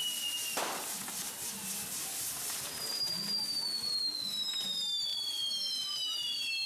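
Castillo firework tower burning, with several long whistles sliding slowly down in pitch and overlapping, and a sudden hissing burst about half a second in.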